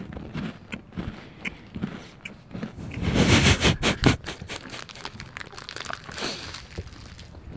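Close-miked chewing of a crunchy chocolate bar: crisp crunches and mouth clicks, with a loud burst of crunching about three seconds in.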